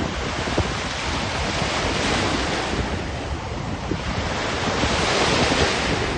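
Black Sea surf washing onto the shore, swelling twice as waves break, with wind buffeting the microphone.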